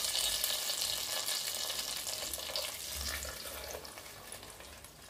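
Hot tempering oil with dried red chillies and panch phoron sizzling on top of a pot of dalia khichuri, the hiss dying down over a few seconds. A spoon stirring the tadka into the khichuri toward the end.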